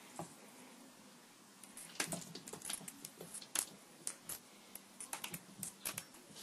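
A cat's claws and paws clicking and scrabbling on a hardwood floor as it plays. The rapid, irregular run of sharp taps starts about two seconds in.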